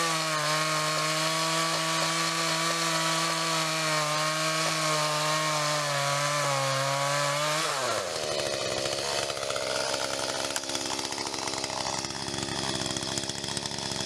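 Echo two-stroke chainsaw running at full throttle while cutting through a log, holding a steady high pitch. About eight seconds in, the throttle is let off, and the engine winds down quickly to a lower, rougher idle.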